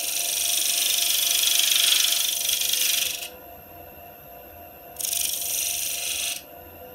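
Spindle gouge shearing across the face of a spinning spalted beech disc on a lathe, a hissing cut for about three seconds, then a pause with only the lathe's steady hum, then a second, shorter cut about five seconds in. The cuts flatten the face of the disc.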